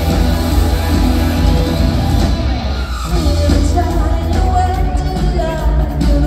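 Live band music in a concert hall, heard from the audience, heavy in the bass, with a singer's voice over it. The music thins out briefly about halfway through.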